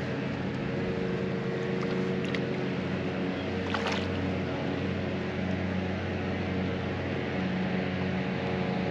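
A boat motor hums steadily over wind and water noise, with a couple of faint clicks along the way.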